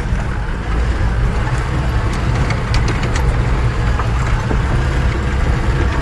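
Vehicle engine running as the vehicle drives slowly over a rough stony track, heard from inside the cab. It is a steady low rumble with a few scattered sharp clicks and knocks from the body and stones.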